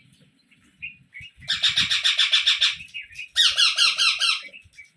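Rose-ringed parakeet chicks begging while being fed by regurgitation: two runs of rapid, shrill, repeated calls of about eight pulses a second, each lasting about a second, with a short chirp before them.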